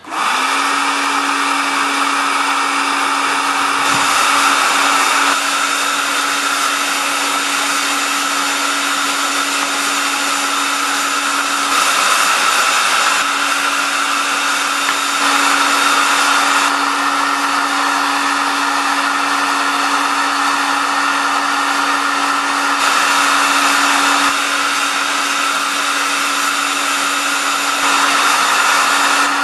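Electric heat gun running steadily: a constant rush of blown air with a steady low hum, heating a weight to fuse powder paint onto it.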